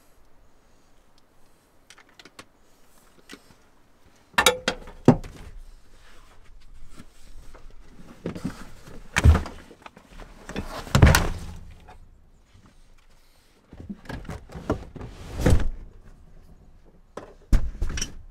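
Hunting gear being loaded onto a vehicle's back seat: a backpack with trekking poles and a muzzleloader rifle set down with a series of loud thunks and knocks and fabric rustling, starting about four seconds in.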